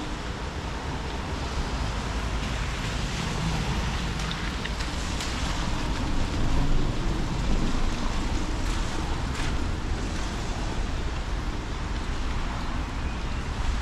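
Street ambience: a steady rumble of distant traffic and wind noise, with a few faint clicks.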